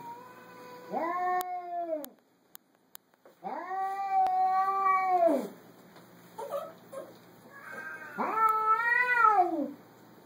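Domestic cat yowling (caterwauling) in three long drawn-out calls, each rising and then falling in pitch, with a short softer call between the second and third. It is a cat's territorial yowl at a strange cat on the other side of a glass door.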